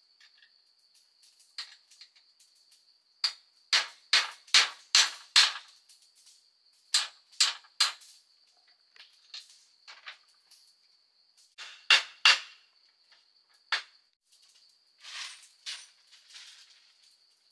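Hand-tool blows striking wood: a quick run of six sharp strikes about two a second, then more in twos and threes, with a steady high-pitched insect drone behind.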